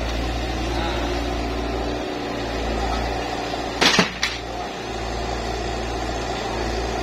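Yanmar mini excavator's diesel engine running steadily as it works its arm, with a sharp clank, quickly repeated, about four seconds in as the bucket swings a load of branches over the pickup's bed.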